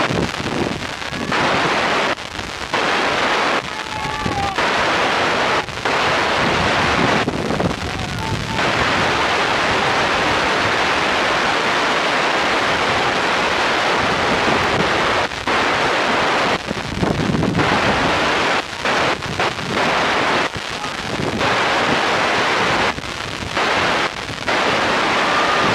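Wind buffeting the camera microphone: a loud rushing noise that drops out and comes back in uneven gusts.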